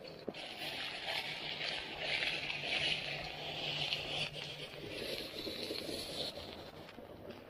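Heavy rain hissing steadily on a wet paved street, with water splashing and streaming off a roof close by. The hiss swells through the middle and eases near the end, over a faint low hum.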